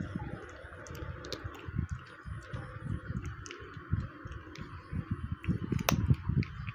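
A cat chewing chicken pieces close to the microphone: a run of irregular wet clicks and crunches, with one sharper crack about six seconds in.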